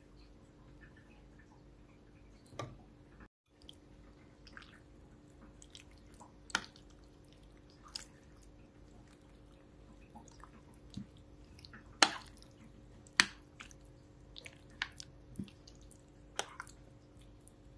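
Metal spoon stirring a thick mixture of whipped cream and crushed pineapple in a glass baking dish: soft wet squishing, with scattered clinks of the spoon against the glass. Two clinks about two-thirds of the way through are much louder than the rest.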